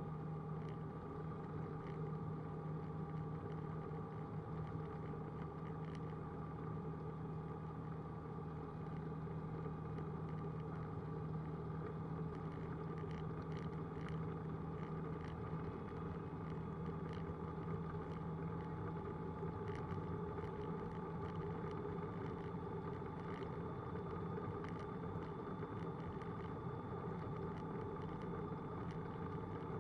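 Roland Aircraft Z602 ultralight's propeller engine running steadily at low taxi power, heard from inside the cockpit as an even drone with a constant low hum.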